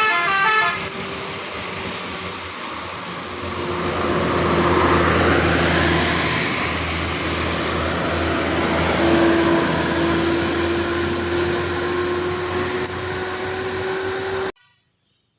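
Telolet basuri multi-tone bus horn playing a quick run of melodic notes, followed by the tour bus's diesel engine and tyres passing, louder in the middle, with a steady tone rising slightly in pitch over the last few seconds. The sound cuts off abruptly near the end.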